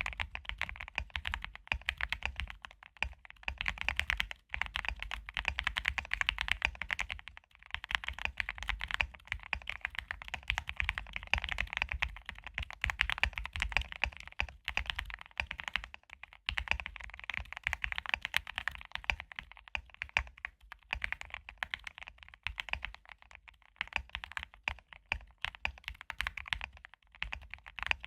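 Mechanical keyboard with Gateron Milky Yellow linear switches being typed on quickly and steadily, a dense run of keystroke clacks broken by a few brief pauses.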